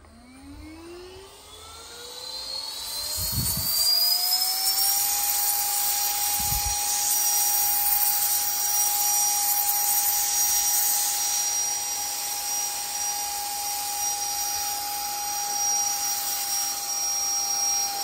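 Baseus 5000Pa handheld cordless vacuum switched on: its motor winds up over about five seconds to a steady high whine, with air rushing through the flexible hose nozzle. Two low thumps come in the first seven seconds.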